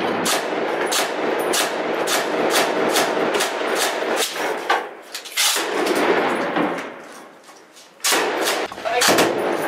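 Close gunfire from a belt-fed PK-type machine gun, shots coming about two to three a second and echoing in an enclosed space. The firing dies down briefly about seven seconds in, then resumes.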